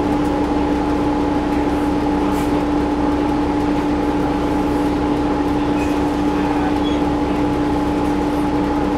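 Steady drone inside the cabin of a Gillig Advantage transit bus, its Cummins ISM diesel and onboard machinery running with a constant, unchanging hum.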